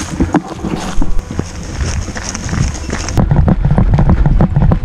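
Running footsteps on a dry dirt trail, turning into a quick, regular beat of heavy thuds about three seconds in.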